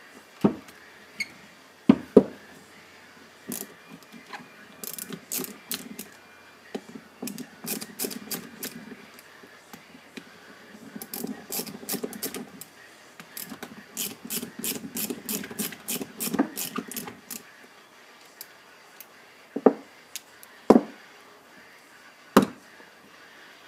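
Socket ratchet clicking in quick bursts as the bolts on a brake caliper are turned, with a few sharp knocks near the start and again near the end.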